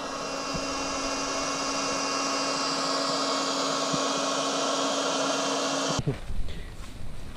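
Handheld electric air pump running steadily, blowing air into an inflatable air mattress. It cuts off abruptly about six seconds in, followed by a few soft knocks.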